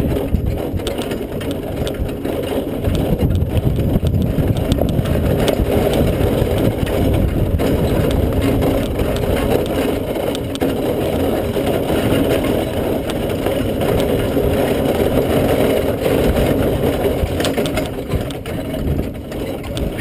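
Horse-drawn driving carriage rolling over a dirt and grass track, a steady crunching rattle of wheels and vehicle with the single horse's hoofbeats mixed in.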